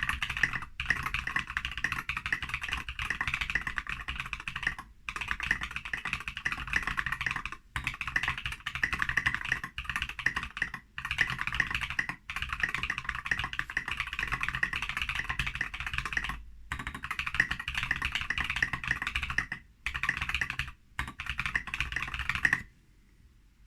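Continuous typing on a Foxlabs Key65 mechanical keyboard with lubed Holy Panda tactile switches: fast runs of keystrokes broken by brief pauses, and the typing stops just before the end.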